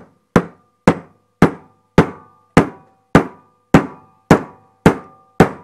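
Hammer striking a steel chisel held against a chunk of ore rock, ten even blows about two a second, each with a short metallic ring, as he tries to split the rock open.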